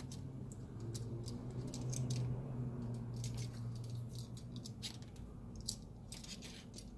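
Light clicks and small taps from handling tools and parts on a workbench during an iPad screen repair, irregular and scattered, over a low steady hum that swells for a few seconds in the first half.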